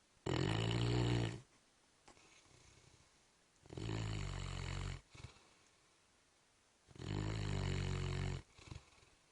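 A sleeping mastiff snoring: three long snores about three seconds apart.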